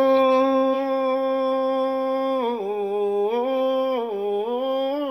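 A man's voice chanting a Thai ordination verse into a handheld microphone. He holds one long drawn-out note for about two and a half seconds, then his voice swings down and back up between a lower and a higher pitch several times.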